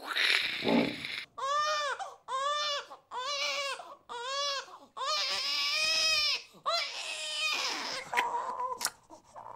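A baby crying: four short wails that rise and fall in pitch, then a longer wail about five seconds in, with more crying after it.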